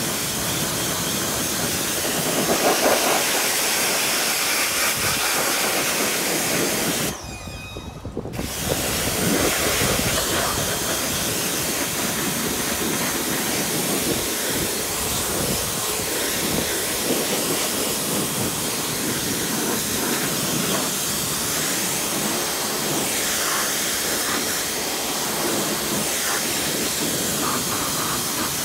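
Pressure washer lance spraying a jet of water over a motorcycle to rinse it, a steady loud hiss of spray. The spray stops for about a second some seven seconds in, then starts again.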